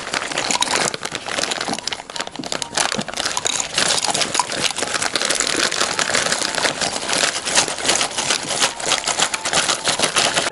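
Clear plastic bag crinkling and crackling without a break as dried flower petals are shaken out of it into a glass terrarium.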